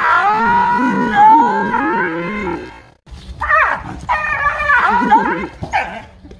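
Dog whining and yelping, high wavering cries that break off just before three seconds in, followed by a run of sharp falling yelps.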